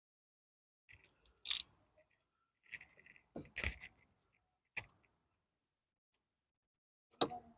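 Hand tools and small metal parts clinking and clicking, about six separate knocks with gaps between, the loudest about one and a half and three and a half seconds in.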